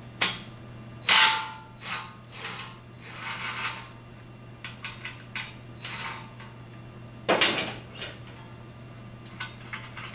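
Cordless impact wrench hammering in several short bursts over the first four seconds and once more about seven seconds in, loosening a motorcycle's 12 mm rear muffler bolt, with lighter clicks between the bursts.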